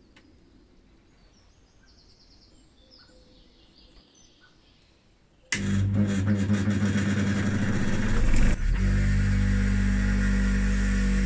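Quiet with a few faint chirps, then a bench grinder with a wire brush wheel is switched on about halfway through and runs with a loud, steady motor hum.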